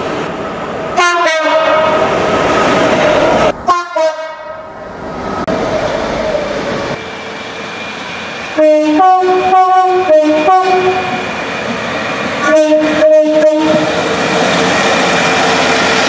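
Two-tone horns of British diesel trains. First comes one long blast from a diesel freight locomotive, cut short after about two and a half seconds, then a brief toot. Later a diesel multiple unit sounds a series of short toots switching between two pitches, followed by the steady rumble of the unit running past.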